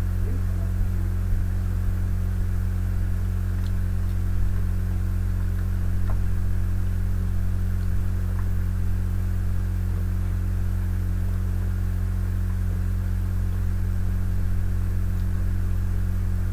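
Steady low electrical mains hum, with a few faint, soft clicks scattered through it.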